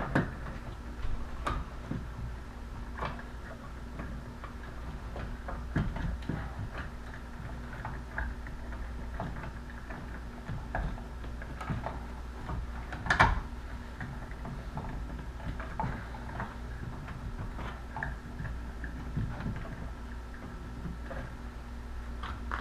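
Wires and a dimmer switch being pushed into an electrical wall box: scattered small clicks and knocks as they are handled, with one louder knock about halfway through.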